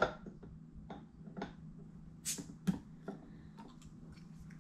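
Cap levered off a glass beer bottle with a metal bottle opener: a sharp pop at the start, then a few light clicks and taps of the opener and cap.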